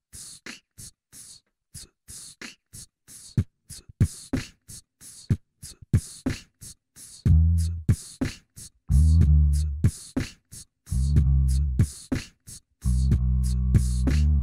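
Beatboxed percussion laid down on a loop station: a steady rhythm of mouth-made kicks, snares and hi-hat clicks. From about seven seconds in, a loud, low beatboxed bass line joins in short repeating phrases, each about a second long.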